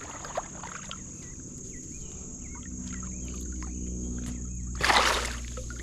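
A short splash about five seconds in as the hooked bass thrashes at the surface, over a steady low motor hum that grows louder and a constant high-pitched whine.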